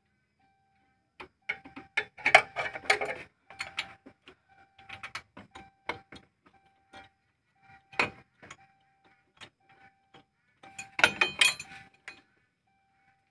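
Ratchet socket wrench clicking in quick runs, with metal tool clinks, as the bolts of a car's clutch slave cylinder are worked loose in a tight space. The busiest clicking comes about two seconds in and again near the end, and a faint steady tone comes and goes behind it.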